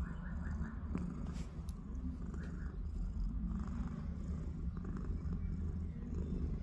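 21-year-old grey and white domestic shorthair cat purring, a steady low rumble. A few faint high chirps come through near the start and again a couple of seconds in.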